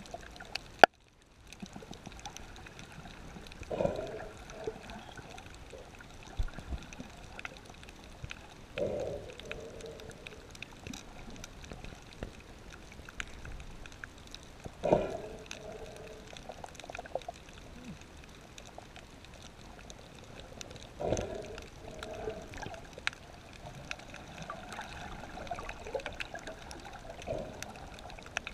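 Muffled underwater water noise from a submerged camera, with a gurgling burst every five to six seconds. A sharp click comes about a second in.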